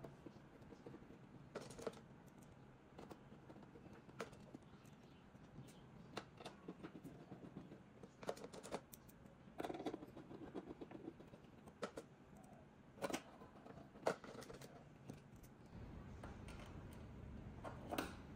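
Faint scattered clicks, taps and knocks of hands handling and refitting an audio streamer's metal case, with a few sharper knocks now and then. A faint low hum comes in near the end.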